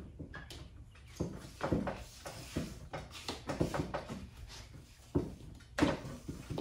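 Rubber gasket being worked by hand around the edge of a car quarter-window glass: irregular soft knocks and rubbing of rubber on glass, with a couple of louder knocks about five seconds in.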